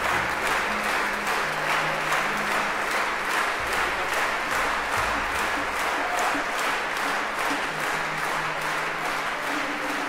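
Concert-hall audience applauding a chamber orchestra. The clapping falls into a steady shared rhythm of about three claps a second.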